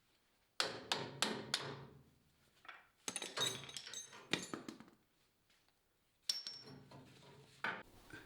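Metal tools striking metal: four sharp knocks about a third of a second apart, then a quicker clattering run with a metallic ring about three seconds in, and one more clank with a brief high ring past six seconds.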